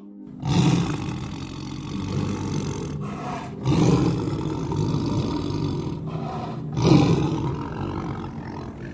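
A large animal's deep, rough call, three times, about three seconds apart, each starting loud and fading away.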